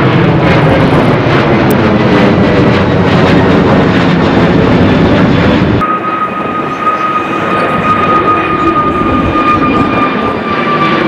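Jet airliners at take-off power: first a Boeing 737-800's CFM56 engines. About halfway through, the sound cuts abruptly to an Airbus A320neo's CFM LEAP engines, which have a loud steady whine that slowly falls in pitch.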